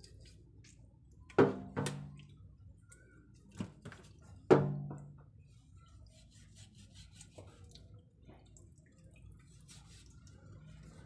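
Small clicks and drips of knife work at a wet stainless steel sink. Two loud, sudden sounds break in, about a second and a half and four and a half seconds in, each ringing briefly at a low pitch.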